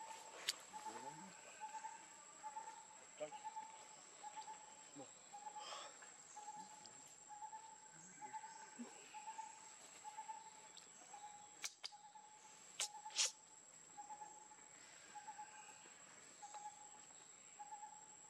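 Faint forest ambience: a steady high insect whine, with a short call repeating about twice a second. A few sharp clicks come about twelve to thirteen seconds in.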